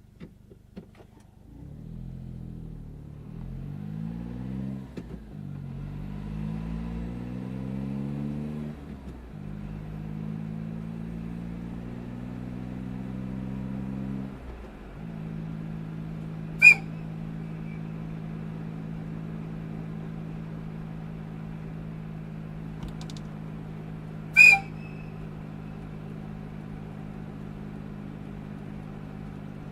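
Kei truck engine pulling away and accelerating through the gears, its pitch rising and dropping at each shift, then settling to a steady idle. Over the idle, an AW-2 electric-locomotive-type air whistle gives two short, high-pitched blasts about eight seconds apart, the loudest sounds here, the second slightly longer.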